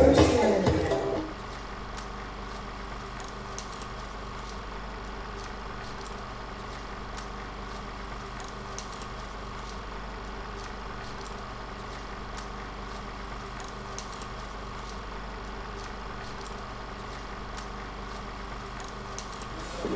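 Dance music cuts off about a second in, leaving a steady mechanical hum of the room with a few faint clicks.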